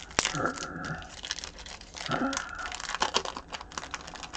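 Crinkling and tearing of a trading-card pack wrapper being pulled open by hand, with rapid crackles throughout. Two brief gliding pitched sounds come just after the start and about two seconds in.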